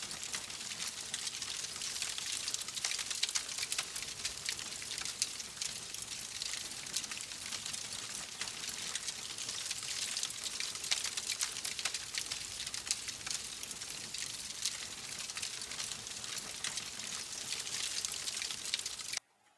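Wood fire in a fireplace crackling and popping: a dense run of sharp snaps over a steady hiss, cutting off abruptly near the end.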